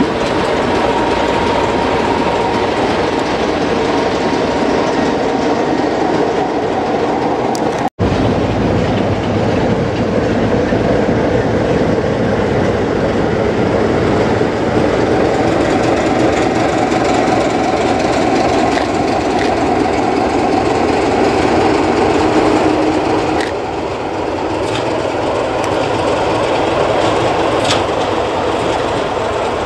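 Class 33 'Crompton' diesel locomotive running, its Sulzer eight-cylinder two-stroke engine giving a loud, steady sound as the loco moves along the track. The sound cuts out for an instant about eight seconds in. After about twenty-three seconds it drops in level as the loco draws away, with a few sharp wheel clicks over the rail joints near the end.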